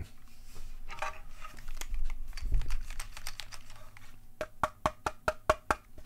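Keychron mechanical keyboards being handled on a desk: scattered clicks and knocks, then a quick run of about ten sharp clacks in the last second and a half as the board is lifted and tipped over.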